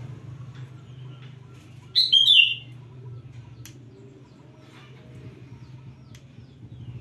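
A bird chirps briefly, a quick burst of short notes ending in a falling note, about two seconds in, over a steady low hum.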